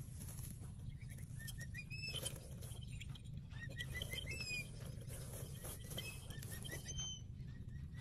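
A bird gives runs of short, rising chirps, several a second, starting about a second and a half in. Scattered faint rustling and a steady low rumble sit beneath.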